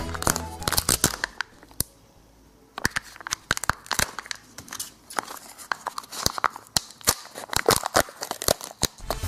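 A wrapper being crinkled and torn open by hand, in irregular sharp crackles, with a short pause about two seconds in. Background music fades out at the start.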